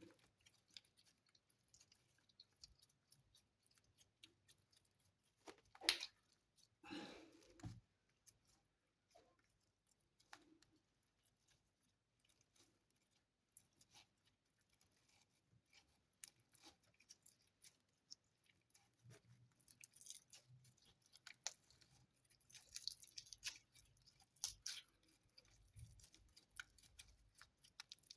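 Slime being squished and poked, making faint sticky clicks and crackles. There is a sharper pop about six seconds in, and the crackling grows busier in the last third.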